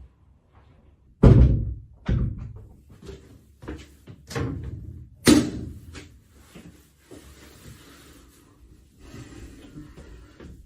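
A door banging shut with several knocks and thuds, the two loudest about a second in and about five seconds in, then a softer rustle.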